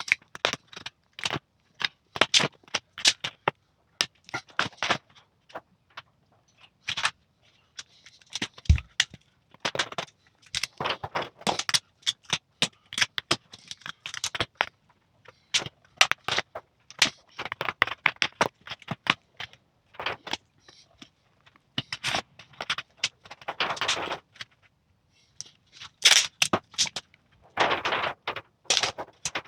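Clear plastic patterning sheet crackling and scraping as it is handled and fitted over a convertible hood frame, in irregular clusters of sharp clicks and rustles. A single dull thump about nine seconds in.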